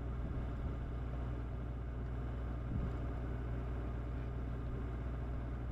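Generator engine running steadily with a low, even hum.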